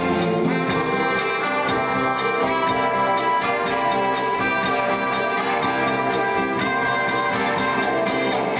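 Cha-cha-cha dance music with brass playing over a steady beat.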